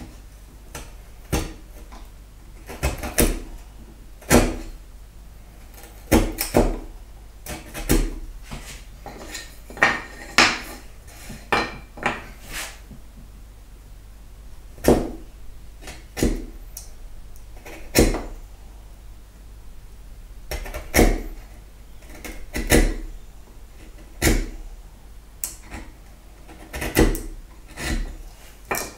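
A bevel-edge chisel is pushed down by hand, vertically paring the waste from a halving joint onto a board beneath. It gives a series of short, sharp knocks and cracks at irregular intervals, roughly one every second or two.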